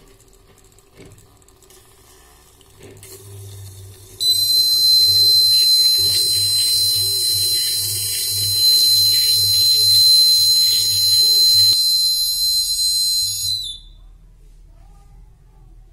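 Piezo buzzer of a water-tank overflow alarm circuit sounding a loud, steady high-pitched tone as the water reaches the top probe: the tank-full signal. Water runs into the jar from a hose underneath; it stops about three-quarters of the way through. The buzzer cuts off near the end as the probe is lifted out of the water.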